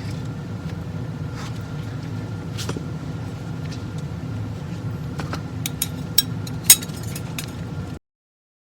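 Several sharp metallic clicks from transmission clutch plates and steels being handled as a clutch pack is taken apart, the loudest about two-thirds of the way through, over a steady low hum. The sound cuts off abruptly near the end.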